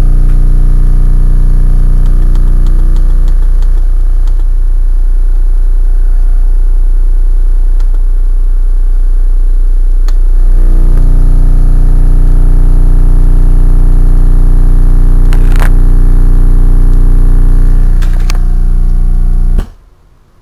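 Homemade subwoofer playing a loud, steady low-frequency test tone at full cone excursion, rich in overtones that thin out about three seconds in and return about ten seconds in. A few sharp clicks sound over it, and the tone cuts off suddenly just before the end.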